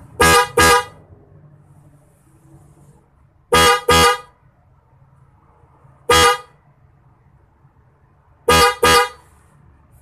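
Hella Blue Twin Tone electric snail horn pair, high and low horns sounding together in short honks. There is a quick double honk at the start, another double honk about three and a half seconds in, a single honk a little past the middle, and a last double honk near the end.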